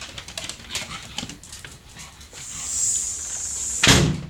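Dog coming in, panting, with a run of quick clicks in the first half, then a steady hiss and a loud thump near the end.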